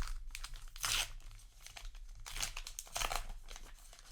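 Paper wrapper of a trading-card booster pack being torn open and crinkled, in rustling bursts: a sharp one about a second in and a longer one toward the end.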